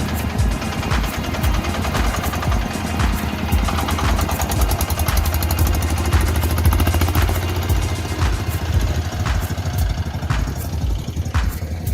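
Engine of a rice-harvesting machine running steadily with a low, regular throb, with scattered sharp clacks from the machinery.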